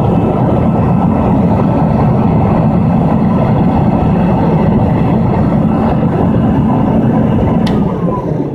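Soviet Raketa vacuum cleaner running with a loud, steady whir. Near the end there is a click, and the motor's pitch begins to fall as it winds down.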